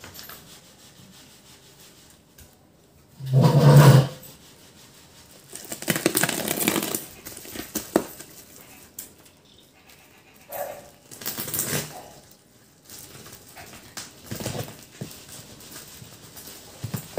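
A parcel's plastic-and-tape wrapping being cut open with a box cutter and handled, with bursts of crinkling and rubbing of the plastic. A loud low thump comes about three and a half seconds in, and longer bouts of rustling come around six and eleven seconds in.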